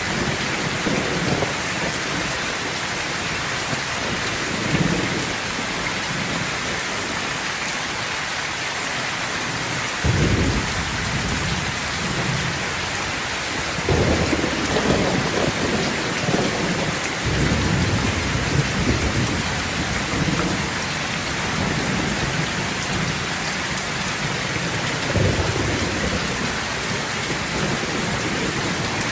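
Steady heavy rain falling, with thunder rumbling repeatedly through it: a low roll starts about ten seconds in, another builds from about fourteen seconds on, and a further one comes near the end.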